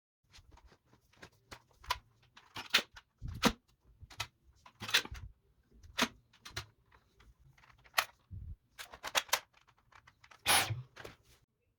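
Irregular clicks, knocks and clatter of hard objects being handled, a dozen or so strokes spread unevenly, with the loudest knock near the end.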